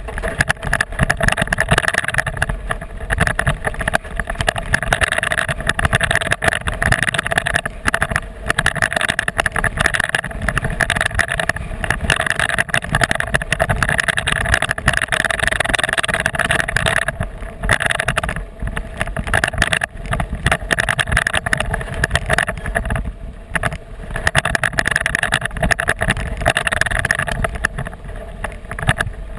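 Toyota Tacoma pickup rolling along a gravel track, picked up close to its front tyre: a steady rumble of tyre and road noise with many small crackles from the gravel.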